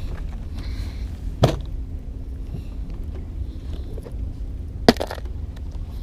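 Clear plastic tackle box being handled and opened: two sharp plastic clicks, one about a second and a half in and a louder one near the end, as the latches snap. A steady low wind rumble on the microphone runs underneath.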